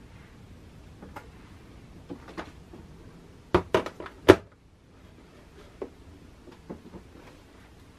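Light taps and clacks of makeup palettes and lip-balm tubes being set down and shifted in a vanity drawer, with a quick run of four or five sharper clacks about halfway through.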